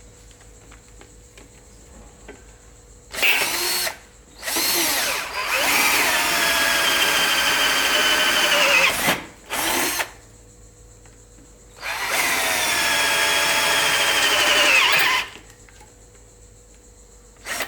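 Cordless Black & Decker drill boring through a motorcycle fork damper rod, enlarging pilot holes in steps towards 8 mm. It runs in bursts with a steady whine: two short blips, a long run of about three and a half seconds, another brief blip, then a second run of about three seconds.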